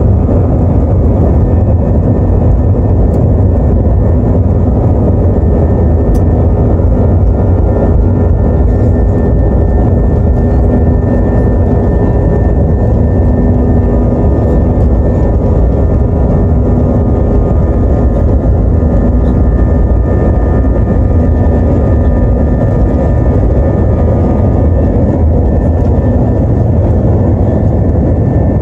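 Jet airliner's engines at takeoff power heard from inside the cabin during the takeoff roll: loud, steady engine noise with a deep rumble and a steady high whine.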